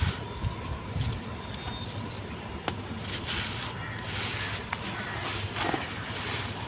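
Dry sand-cement blocks crumbling and crunching, a gritty crackle with scattered sharp clicks.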